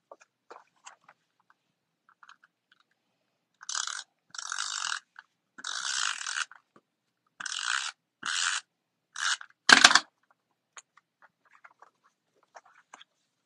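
Adhesive tape runner drawn along cardstock in about seven short rasping strokes, each under a second long, with a sharper, louder stroke or knock near the end.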